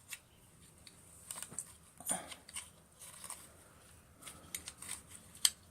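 Faint scattered clicks and scratches of hands working on a vacuum cleaner's plastic turbo brush head, picking out fluff caught around the roller, with a quicker run of sharper ticks near the end.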